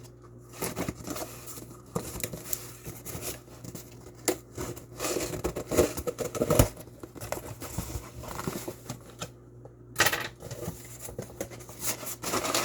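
A mail package being opened by hand: irregular tearing, scraping and crinkling of tape and packaging, with scattered clicks and knocks, busiest about halfway through and with a sharp tear near the end.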